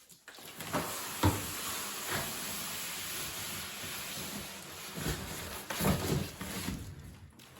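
Packaging being pulled off a boxed fridge: a steady rustling hiss of cardboard and plastic wrap, broken by several knocks and bumps against the appliance.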